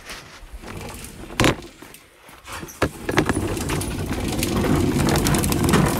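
Plastic wheels of a Little Tikes Cozy Coupe toy car rolling across the floor as it is pushed, a steady low rumble with light rattling that starts about three seconds in and grows louder, after a couple of sharp knocks.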